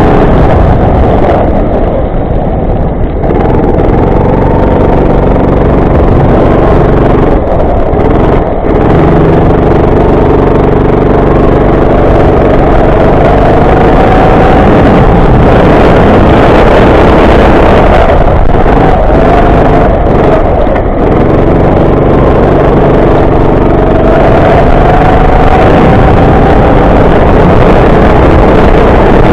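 Go-kart engine running hard and very loud, its pitch climbing steadily along each straight and dropping sharply off the throttle for corners, several times over.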